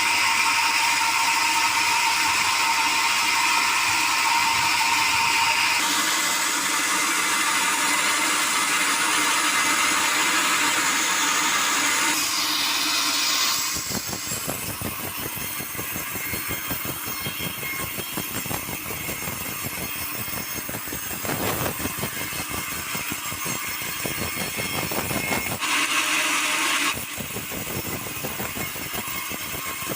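Sawmill machinery running: a saw cutting through a log with a steady high whine for the first dozen seconds or so, then dropping to the mill's engine running with a fast rattle, with a brief burst of the high whine again about 26 seconds in.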